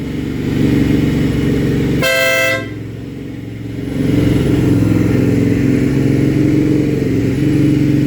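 Newly fitted Stebel horn on a Triumph America motorcycle giving one short blast of about half a second, about two seconds in, over the motorcycle's parallel-twin engine idling steadily. The engine gets a little louder from about four seconds in.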